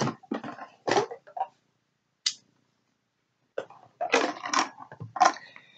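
Handling noise from a knife sheath and its straps: a few sharp clicks and knocks, a short high click around two seconds in, then a denser run of knocks and rustling close to the microphone about four seconds in.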